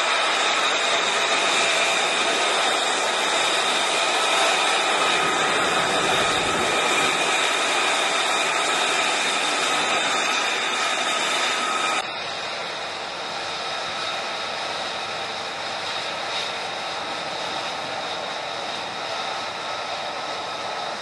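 F-35B Lightning II jet engine running as the jet taxis, a loud steady whine with several held high tones. About halfway through it drops suddenly to a quieter, similar whine.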